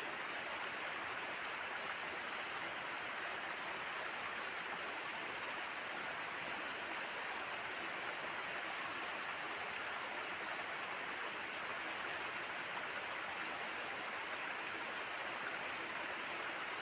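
Steady, even rushing outdoor background noise with no separate events.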